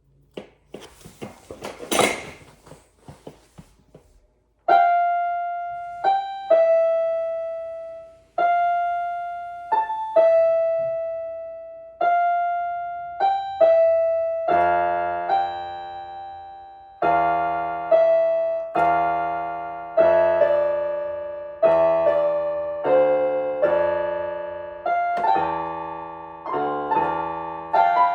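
About four seconds of rustling and knocking noise, then a piano plays a slow melody of single notes, each struck and left to ring and fade. About ten seconds later fuller chords with low bass notes join in.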